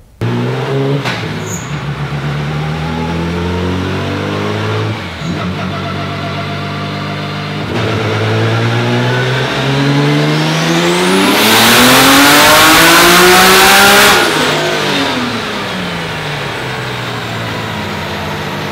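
Car engine running steadily, then revving up over a few seconds, held at high revs at its loudest for about two and a half seconds, then dropping back down and settling.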